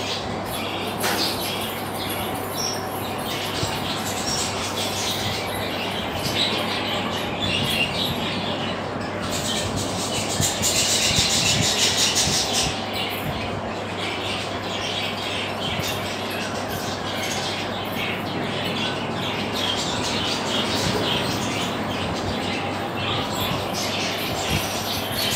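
Pigeon squab being fed by its parent in the nest: rustling and fluttering wings with scattered squeaks, busiest for a few seconds around the middle.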